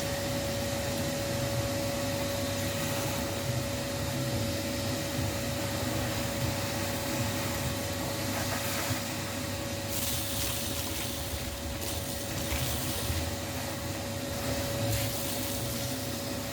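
A small motor running steadily with a rush of air and an even hum. The hiss turns brighter in patches for a few seconds past the middle.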